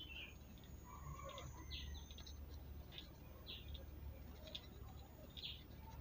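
Faint bird chirping: short high chirps at irregular intervals over a low steady hum.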